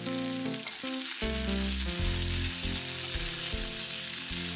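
Minced garlic and chili sizzling in hot olive oil in a frying pan, a steady hiss, with soft background music under it.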